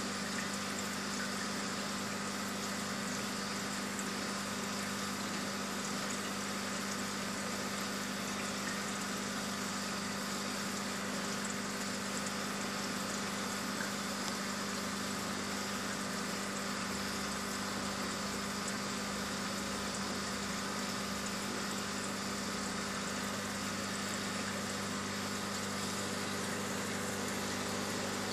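Aquarium pump running: a steady electrical hum under an even hiss of moving water, unchanging throughout.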